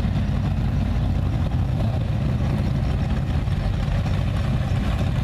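Engines of hot rods and classic cars running at low revs as they move slowly past. The sound is a steady, deep, unbroken drone.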